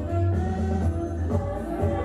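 Roots reggae played loud over a sound system: long, deep bass notes under a sung melody.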